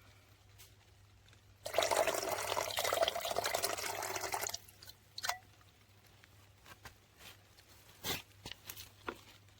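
Liquid being poured for about three seconds, followed by a few light knocks and clicks.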